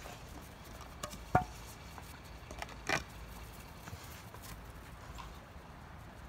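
A dog trotting over snow-dusted ground with a stainless steel bowl in its mouth: light patter of paws, a sharp metallic clink with a short ring about a second and a half in, and a second clatter of the bowl about three seconds in.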